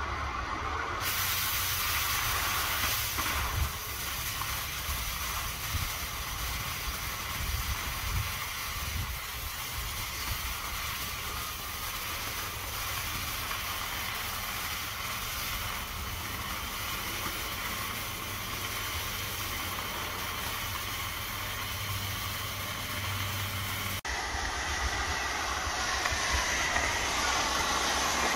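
Oxy-fuel cutting torch on a motorized track cutting machine burning through steel plate: a steady hiss of the torch jet. The hiss gets louder and brighter about a second in, and its character shifts suddenly about four seconds before the end.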